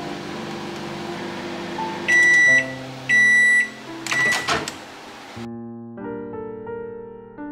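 Two loud electronic beeps, each about half a second long and a second apart, from a microwave oven running with a steady hum, followed by a short clatter. The hum stops about five seconds in, leaving only background music.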